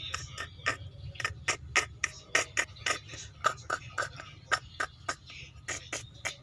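A litter of young kittens spitting and hissing in short, sharp bursts, about three to four a second, with a few mews in between: the defensive reaction of kittens meeting a person for the first time.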